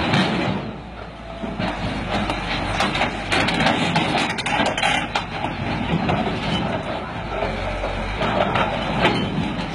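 A crawler excavator's diesel engine runs as the machine tracks down off a low-loader trailer. Its steel tracks clank and knock irregularly on the trailer deck and ramps.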